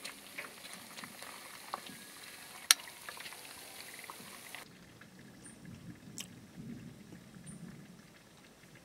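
Hot oil sizzling and bubbling as festival dumplings and a piece of chicken deep-fry in a pot, with scattered crackles and one sharp pop about three seconds in. About halfway through, the frying sound cuts off suddenly, leaving a quieter low background.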